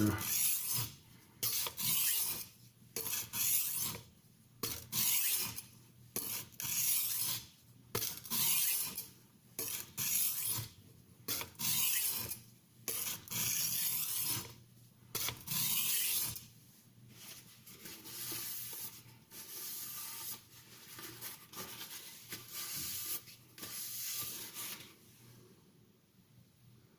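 Victorinox Santoku knife blade stroked back and forth across an oiled Norton India Medium oilstone, about one scraping stroke a second. The strokes grow quieter about two-thirds of the way through.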